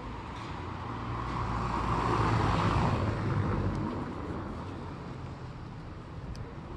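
A motor vehicle passing by on a city street. Its engine rumble and tyre noise build to a peak about two and a half seconds in, then fade away.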